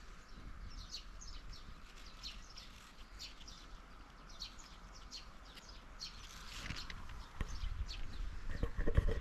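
Small birds chirping, many short high calls repeating over a faint steady hiss. About three quarters of the way in, loud low thumps begin and grow louder, like footsteps close by.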